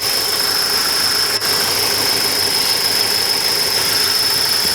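BMW E36 318i four-cylinder engine idling steadily while warming up to operating temperature, with a steady high-pitched whine over the running noise.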